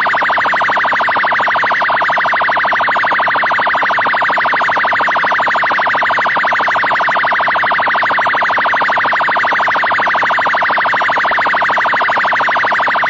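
Police siren sounding its 'abordagem' (pull-over) tone: a loud, very rapid warble that repeats many times a second and holds steady throughout.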